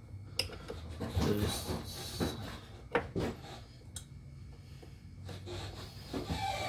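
Metal fuel-line fitting being worked by hand onto a car's fuel filter: irregular rubbing and scraping, with a few sharp clicks about half a second, three seconds and four seconds in, as the threads are being started.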